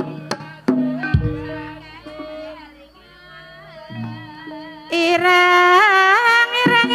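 Banyumasan gamelan music: struck metallophone notes and drum strokes, with a deep, long-ringing low note about a second in. About five seconds in, a sinden's high voice comes in, singing with a wavering pitch over the ensemble.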